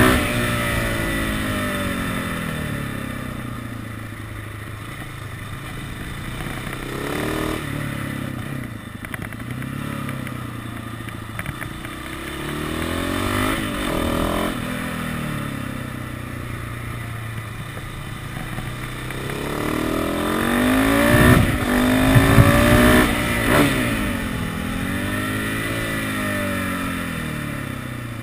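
KTM 690 SMC supermoto's single-cylinder four-stroke engine heard from on board, its pitch rising under acceleration and falling off on the closed throttle into corners, again and again. It is loudest about three-quarters of the way through, with a few sharp cracks there.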